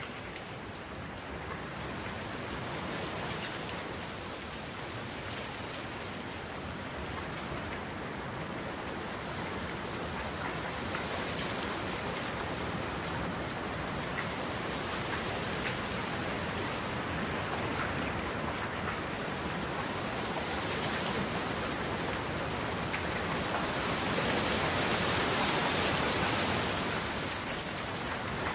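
Steady rain falling, a hiss of many drops with fine scattered patters, swelling louder a few times and heaviest near the end.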